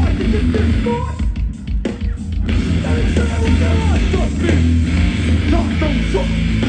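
A live hardcore punk band playing loud, heavy music, with a brief break about a second and a half in.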